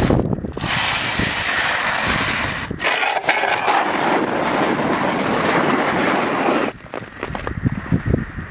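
Snow shovels scraping snow off concrete pavement in long continuous pushes; about seven seconds in it drops to quieter, short scoops and knocks of the blade in the snow.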